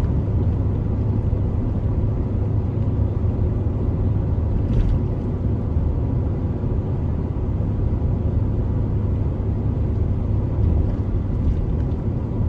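Pickup truck driving, heard from inside the cab: a steady low rumble of engine and road noise. A faint click about five seconds in.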